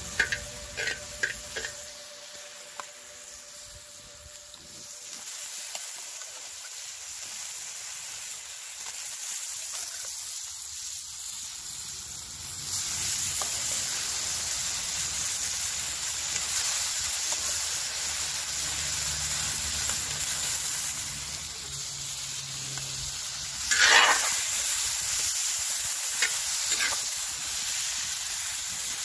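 Onions and meat frying in hot oil in an iron saj pan over a wood fire, a steady sizzle that turns clearly louder about halfway through as the meat goes in. A metal spoon clicks and scrapes against the pan as the food is stirred, loudest near the end.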